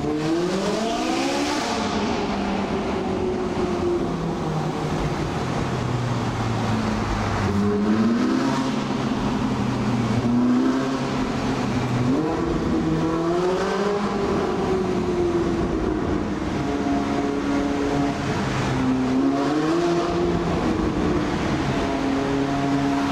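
Stock Ferrari 458 Italia's 4.5-litre V8 engine under way. It rises in pitch several times under acceleration and drops back at each gearshift or lift-off, with stretches of steadier cruising in between.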